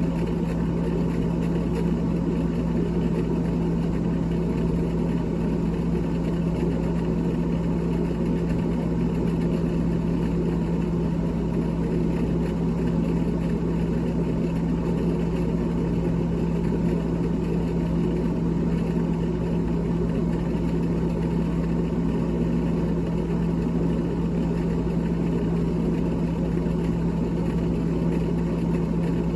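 Freezer fan of a GE top-freezer refrigerator running with a steady, unchanging hum.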